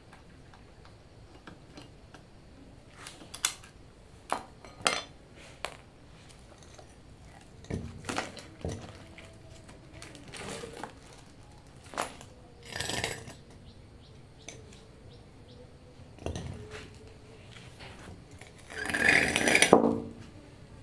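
Scattered metal clinks and knocks from a long hand tool and hands working on an inverter air-conditioner compressor and its accumulator, then a louder clattering scrape near the end as the heavy steel compressor is laid over on the concrete floor.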